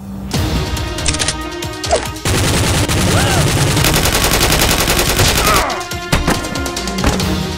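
Automatic gunfire sound effect dubbed onto a toy blaster: one rapid, continuous burst of about three and a half seconds, starting a little over two seconds in.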